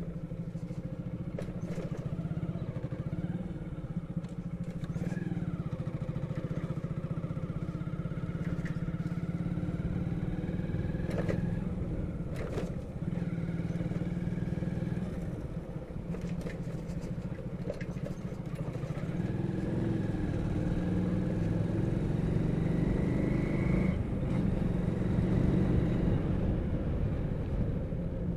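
Motorcycle engine running steadily under way, growing louder about two-thirds of the way in. There are a couple of brief knocks near the middle.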